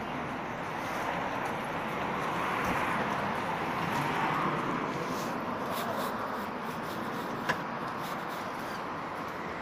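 Steady traffic noise on a town street, with a short sharp click about seven and a half seconds in.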